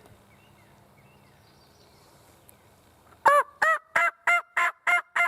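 A hunter's turkey call sounding a run of hen yelps, about seven short, evenly spaced notes beginning about three seconds in, meant to make a gobbler answer.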